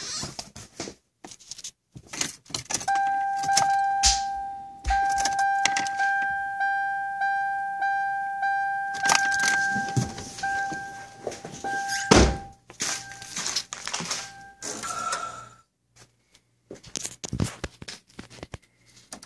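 A car key jangling and clicking in the ignition of a 1997 Toyota Camry that won't start, with a few heavy thunks. A steady electronic warning tone from the car sounds for about twelve seconds, broken briefly a few times, and no engine catches.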